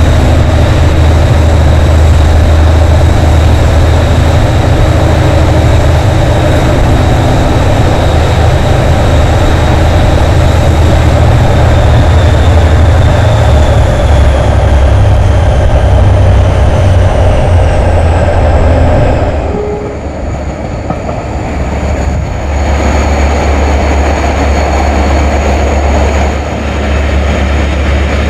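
Class 57 diesel-electric locomotive's GM two-stroke engine running hard, a loud, deep, steady engine note with a high whine above it that slowly falls in pitch. About two-thirds of the way through, the engine sound drops away sharply for a couple of seconds, then picks up again a little quieter.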